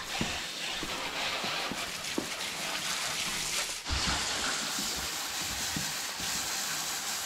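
Garden hose spray nozzle hissing as a jet of water spatters onto a muddy mountain bike's frame and tyres. The spray breaks off briefly and starts again about four seconds in.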